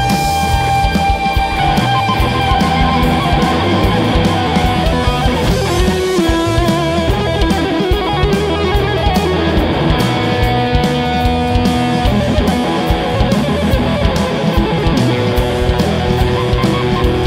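Live band music, instrumental rock-blues: an electric guitar plays long held lead notes over bass and drums with steady cymbals.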